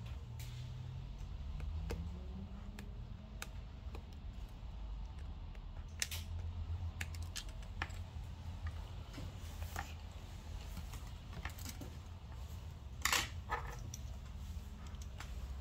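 Scattered light metallic clicks and taps of small repair tools taking out tiny screws from an iPad Pro's frame, with a short burst of louder clicks near the end.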